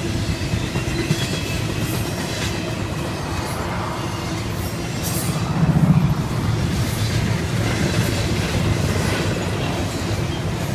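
Double-stack intermodal freight cars rolling past at speed: a steady rumble of steel wheels on rail with a clickety-clack over the rail joints. About halfway through, a pickup truck drives past close by and the sound briefly swells.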